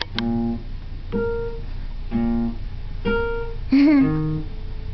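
Music of plucked acoustic guitar, with a chord or group of notes about once a second, each fading out. Near the end a brief voice sound bends in pitch and is the loudest moment.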